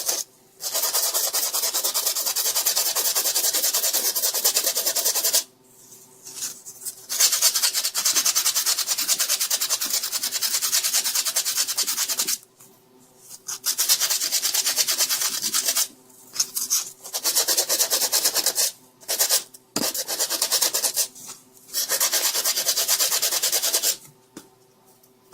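Sandpaper scrubbed by hand on a plastic laptop power adapter's case to strip old glue: quick back-and-forth rasping strokes in about six bouts with short pauses between them.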